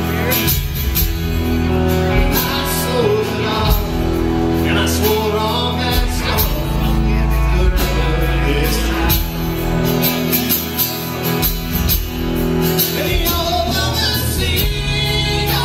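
Live band playing a song: acoustic and electric guitars, bass and drum kit, with singing over it.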